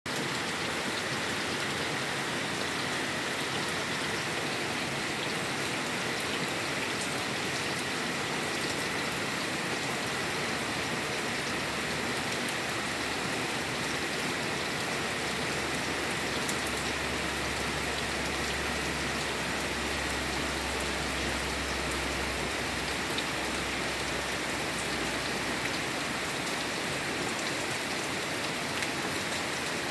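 Steady rain falling, an even hiss with scattered drop ticks, and a low rumble between about 17 and 23 seconds in.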